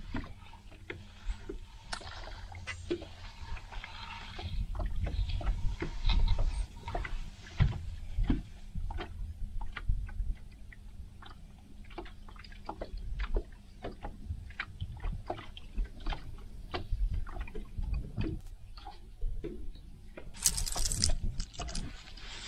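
Water lapping against a small fishing boat's hull, with a steady low rumble and many small clicks and knocks from handling gear in the boat. A brief hiss comes near the end.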